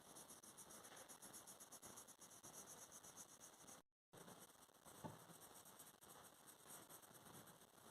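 Faint scratching of a coloured pencil shading on paper, broken by a brief total dropout about halfway through.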